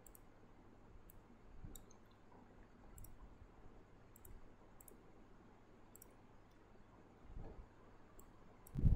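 Faint computer mouse clicks, about one a second, as items are selected in design software, with a low thump near the end.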